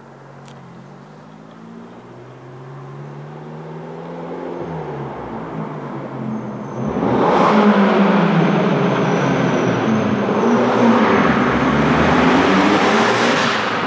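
Fiat 500 Abarth's turbocharged 1.4-litre four-cylinder with a Magneti Marelli sport exhaust, accelerating toward the listener through the gears, its pitch climbing and dropping back at each shift. It grows much louder about seven seconds in as the car nears, with the exhaust echoing off the tunnel walls.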